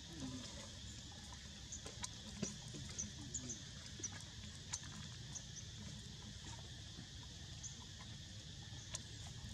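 Outdoor ambience: a steady high hiss with short high chirps and scattered faint clicks, and a few faint low calls near the start and about three seconds in.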